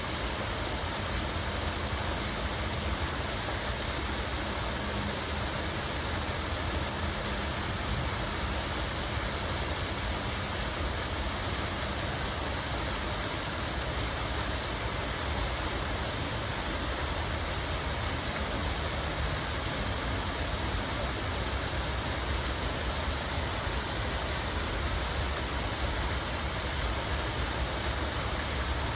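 Running water in a park fountain or stream, a steady, even rush with a low rumble underneath.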